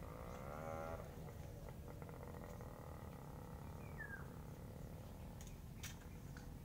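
An animal's wavering call in the first second, then a short falling chirp about four seconds in, over a steady low rumble.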